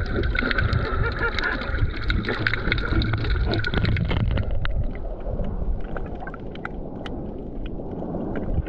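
Sea water heard through an underwater camera housing: a muffled rumble with many scattered clicks and crackles. A steady high hum sits over it for about the first four seconds, then stops.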